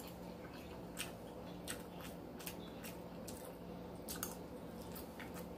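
Quiet close-up eating sounds: chewing with sharp little wet mouth clicks, about one every second or so.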